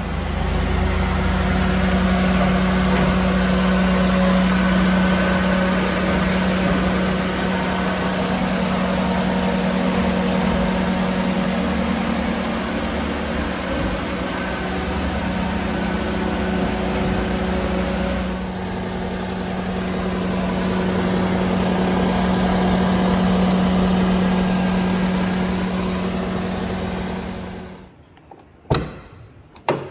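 1999 Daihatsu Hijet Jumbo mini truck's 660 cc three-cylinder engine idling with a steady hum. Near the end the engine sound cuts off, and two sharp clicks follow as the door handle is pulled and the latch releases.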